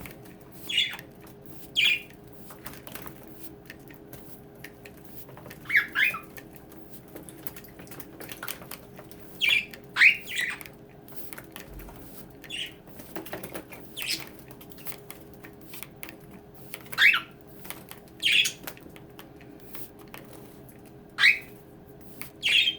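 Budgerigars giving short, sharp chirps and squawks, a dozen or so scattered irregularly, over faint fluttering of wings.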